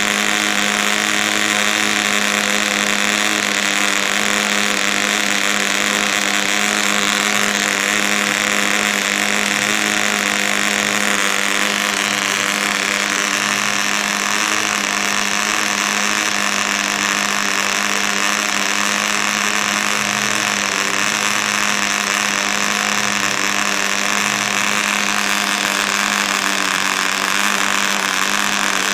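PAW 55 model diesel engine, a tiny single-cylinder two-stroke, running steadily at high speed with its propeller spinning, a constant high-pitched buzz. The engine is being run in on its second tank of fuel.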